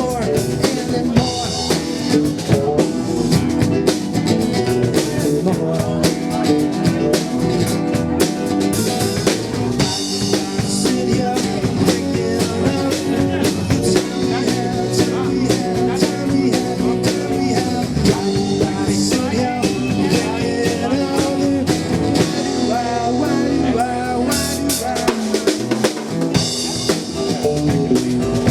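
Rock band playing an instrumental passage without vocals, the drum kit to the fore with snare and bass drum hits over the band.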